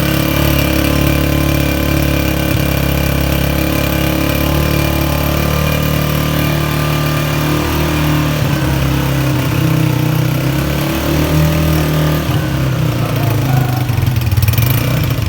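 Honda CG 125's single-cylinder four-stroke engine running steadily at idle, with small changes in its note in the second half.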